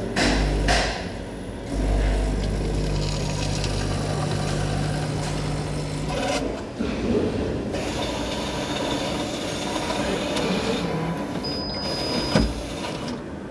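Public espresso vending machine preparing a coffee: a motor hums for several seconds, then gives way to a hissing, rattling dispensing sound. Near the end comes a short high beep and a single knock.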